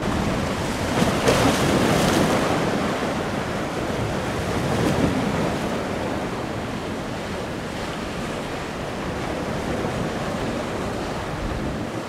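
Ocean surf breaking and washing in, with gusty wind rumbling on the microphone. The wash swells louder about a second in and again around five seconds.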